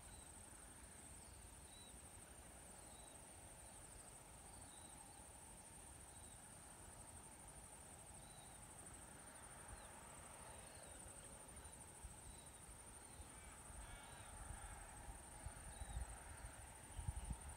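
Quiet countryside ambience: a steady high insect trill, with short faint bird chirps about once a second and a brief call from a bird a little past the middle. Low, gusty rumbles build near the end.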